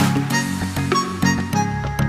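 Background music: plucked-string traditional-style melody over steady held notes.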